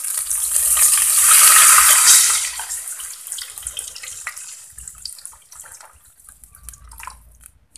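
A litre of water poured in a stream into an aluminium pot of fish frying in oil, loud and hissing for the first two seconds, then quieter as the pour goes on.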